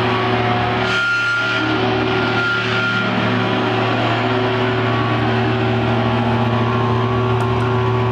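Electric guitar feedback through amplifiers: a loud, steady wash with a deep drone underneath and held tones that swell in and fade away. A higher tone enters about a second in and dies out around three seconds.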